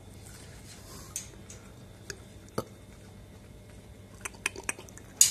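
A macaque eating corn on the cob: scattered sharp clicks and small crunches as it bites and chews the kernels. A quick run of clicks comes about four seconds in, and the loudest one falls just before the end.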